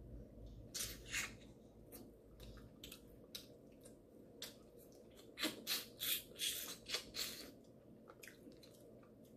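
Wet mouth-eating sounds from snow crab and butter sauce: short smacks and sucks of lips and fingers, in scattered bursts, with a quick run of them about five to seven seconds in.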